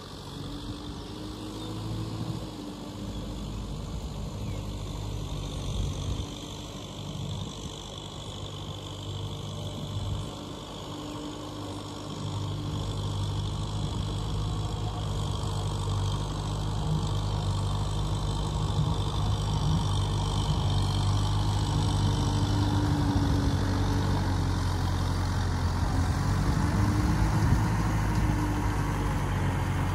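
Kubota M6040SU tractor's diesel engine running steadily under load as it cultivates a flooded rice paddy, growing louder as the tractor comes closer.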